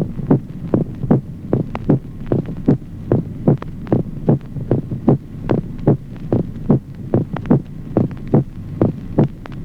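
Human heart sounds in a steady lub-dub rhythm, a little over one beat a second, with a reinforced, loud second heart sound. A low steady hum runs underneath.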